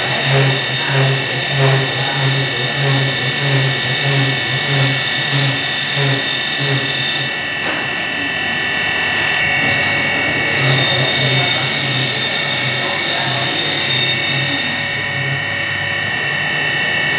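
Vertical milling machine's end mill cutting a cast aluminium gearbox casing under flood coolant: a steady high-pitched cutting whine with a low pulse about two or three times a second. The cut eases off about seven seconds in and picks up again some three seconds later.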